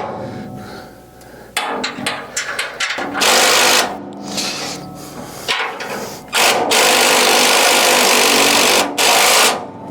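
A handheld power tool running in bursts on the bolts: a short run about three seconds in, a long run of over two seconds near the end, then a brief last burst, with a few clanks of metal work before.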